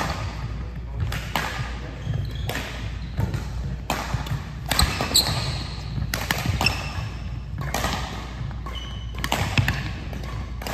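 Badminton rally: sharp cracks of rackets striking a shuttlecock at irregular intervals, mixed with short squeaks of sneakers on the gym floor, echoing in a large hall.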